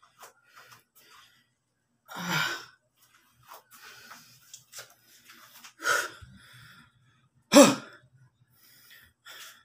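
A man panting hard, out of breath after a set of squats: three loud gasping breaths with faint breaths between, the last and loudest, near the end, with some voice in it.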